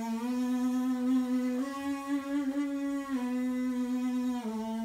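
Trombonist's lips buzzing freely, away from the instrument, in a sustained fly-like buzz. The held note steps up twice to higher notes and then back down again, a lip-buzzing exercise for building range.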